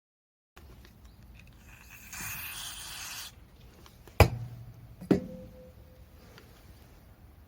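Workshop sounds of tools and parts being handled: a hiss lasting about a second, then two sharp knocks about a second apart, the second leaving a ringing tone.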